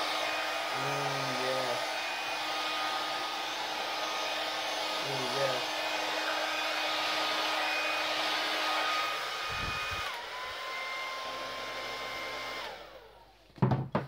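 Hand-held hair dryer blowing steadily with a motor whine over the rush of air, pushing wet acrylic paint across a canvas. About ten seconds in, the whine drops to a lower pitch. The dryer cuts off near the end, followed by a sharp knock as it is set down.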